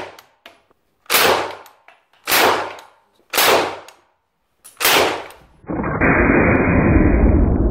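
Four single shots from a PPSh-41 converted to semi-automatic only, firing 7.62×25 mm Tokarev, about one a second. Near the end a loud, steady, low rushing noise sets in and keeps going.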